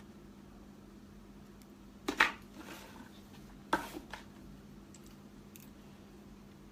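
Cosmetic products and their packaging being handled: two short bursts of clicking and clattering about a second and a half apart, then a couple of faint ticks.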